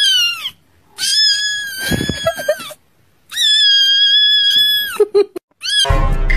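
Kitten screaming in high, drawn-out meows: a short falling cry, then two long held cries with pauses between, and a few short cries near the end.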